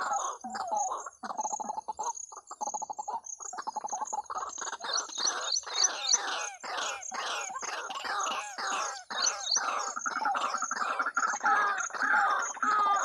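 Waterhen (jal murgi) calls played from a small portable speaker as a lure: a fast run of harsh, repeated croaking calls that grows busier about four seconds in, with a steady series of high chirps above them.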